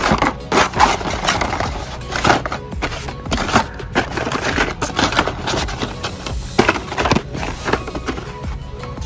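Hot Wheels blister-carded cars being flipped through and shoved aside by hand in a cardboard shipper: plastic blisters and card backs clacking and scraping against each other in quick, irregular strokes.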